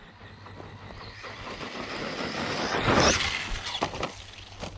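Arrma Outcast 4S RC truck's brushless motor whining and its tyres churning loose ground as it drives in close, loudest about three seconds in, then fading. A few short knocks follow near the end.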